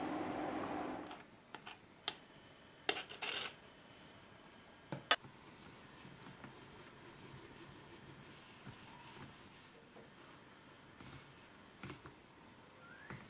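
Faint scraping of a sharpening stone stroked along a steel Nakiri blade on an Edge Pro Apex 4 guided sharpener, with a few sharp clicks and taps of the stone's guide rod and the metal jig. A louder steady tone cuts off about a second in.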